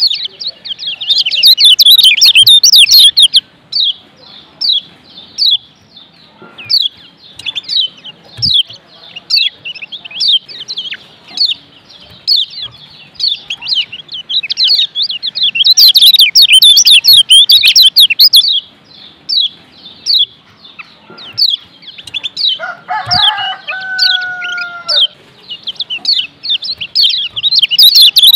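Kecial kuning, the Lombok yellow white-eye, singing a fast, high chirping song, played as a masteran tutor recording for training caged birds. The song swells into loud, dense, rapid trills near the start, in the middle and at the end. A lower, drawn-out call lasts about two seconds near the end.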